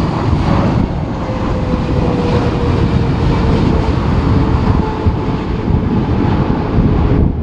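Jet airliner's engines with a whine that slowly falls in pitch, heard under heavy wind buffeting the microphone.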